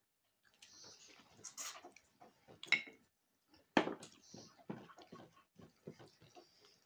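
Close-up eating sounds: irregular chewing and wet mouth smacks.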